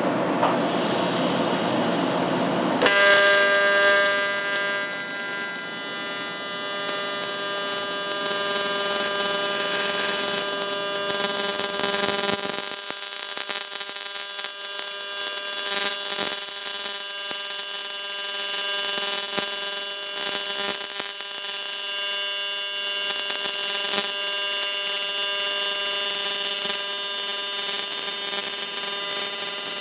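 Welding arc on the aluminum transmission case: after a short hiss it strikes about three seconds in and holds a steady buzz with a hiss over it.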